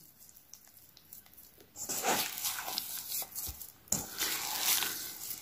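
Wet, doughy homemade kinetic sand (sand mixed with soapy water) squelching as a hand kneads and squeezes it in a metal bowl, starting about a second and a half in and coming in two stretches.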